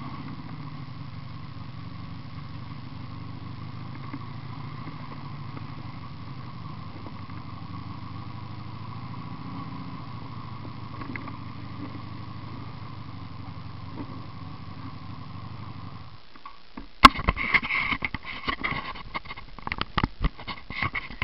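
1986 Honda VF750's V4 engine with homemade exhaust pipes running steadily at low revs, then cut off about three-quarters of the way through. A burst of sharp, irregular knocks and clatter follows, louder than the engine.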